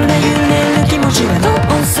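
Upbeat Japanese pop-rock song in an instrumental passage without vocals, full band playing steadily.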